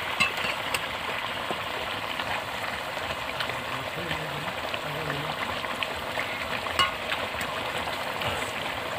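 Papad curry gravy simmering and sizzling in a metal kadai while a metal spatula stirs it, a steady hiss with occasional light clicks of the spatula against the pan.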